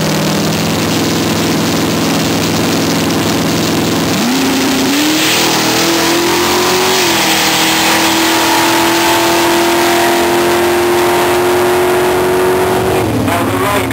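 Chevrolet station wagon's engine on a drag run. It holds steady low revs for the first few seconds, then the pitch climbs sharply about four seconds in and keeps rising. It dips slightly at a gear change about seven seconds in, holds high as the car pulls away, and falls near the end.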